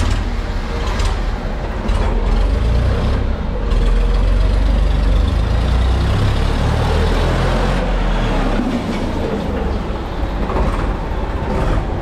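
Modified Ford 3600 tractor's diesel engine running as the tractor drives up and passes close by, a deep, steady rumble that grows louder about two seconds in and eases off after about eight seconds.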